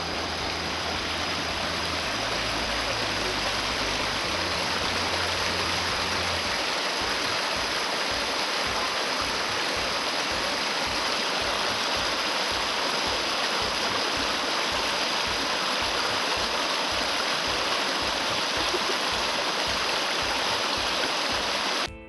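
Water of a shallow rocky stream running over stones: a steady, even rush.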